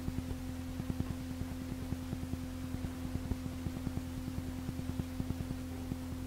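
Steady low electrical hum on the recording, with a fast, irregular crackle of faint low clicks.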